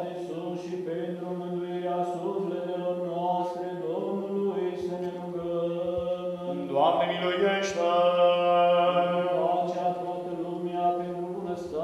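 Orthodox liturgical chant sung slowly without words the recogniser could catch, in long drawn-out notes over a steady low drone.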